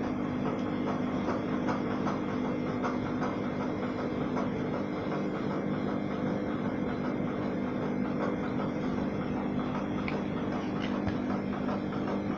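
A steady machine hum with a few held low tones and faint ticking.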